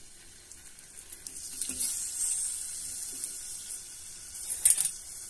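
Sliced onions sizzling in hot oil in a steel pot: a soft hiss that builds about a second in, with a brief sharper crackle near the end.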